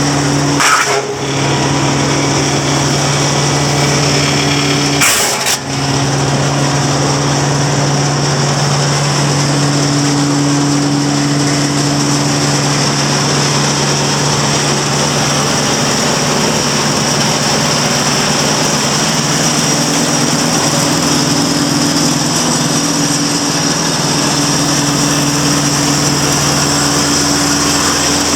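Wood chipper driven by a Deutz BF4M1011F four-cylinder turbo diesel, running steadily with a high hiss over the engine drone; two brief noisy bursts break in about one and five seconds in.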